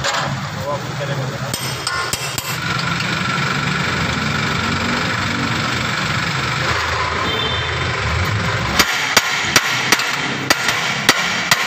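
A steady mechanical hum with background noise, then a run of about eight sharp knocks, two or three a second, in the last three seconds.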